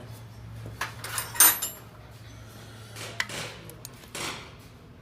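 Metal tools or parts being handled: clinks and clattering, loudest about a second and a half in, with more knocks around three and four seconds in, over a steady low hum.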